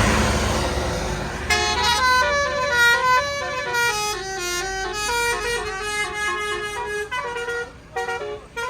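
Indonesian tour bus basuri (telolet) melodic horn playing a quick tune of stepping notes. It starts about a second and a half in and breaks off in short gaps near the end, after a rush of vehicle noise dies away.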